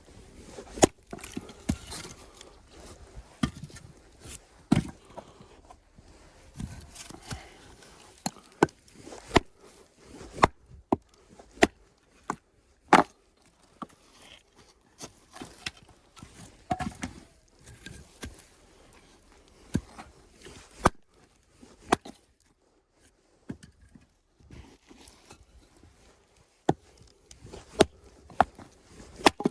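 Irregular series of sharp knocks and impacts on wood, often a second or two apart, with quieter scraping and handling noise between them.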